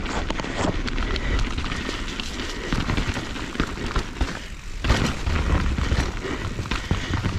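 Mountain bike riding over rough rock: a steady clatter of knocks from the tyres, chain and frame, over a low rumble.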